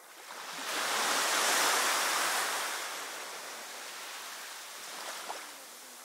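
A sea wave breaking and washing up the shore: the surf noise swells within the first second, peaks, and falls away after about three seconds to a steadier wash of water.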